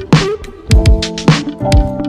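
Music with a strong beat: punchy drum-like hits about twice a second over held chords.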